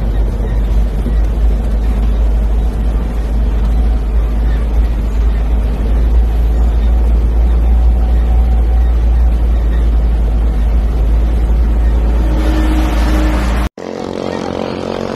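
Engine and heavy low road and wind rumble inside an old vehicle's cabin, driving on a dirt road. About 14 seconds in it cuts abruptly to the steady buzz of small longtail (ketinting) boat engines.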